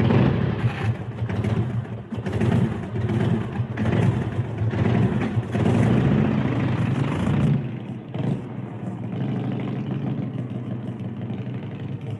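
Car engine revving in repeated swells, then about eight seconds in settling to a steadier, quieter idle.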